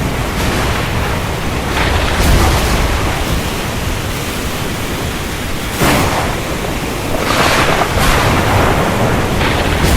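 Heavy rain falling steadily, with thunder: a sudden crack about six seconds in and swelling rumbles around it.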